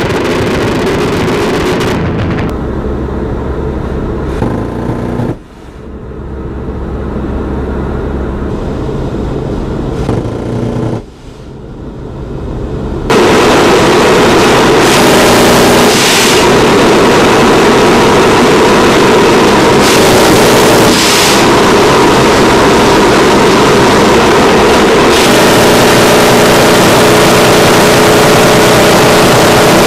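GAU-12 Equalizer 25 mm five-barrel rotary cannon firing sustained bursts, a continuous buzzing rattle, broken off briefly twice in the first half. From about 13 s it is heard from inside the AC-130 gunship, louder and steady, mixed with the aircraft's engine and slipstream noise.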